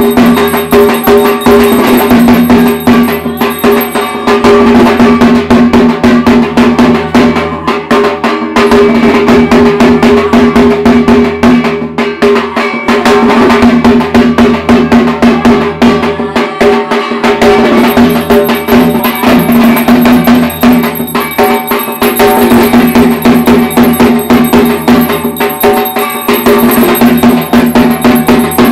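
Puja music: fast, continuous drumming with clanging metal percussion and bells, over a steady held tone.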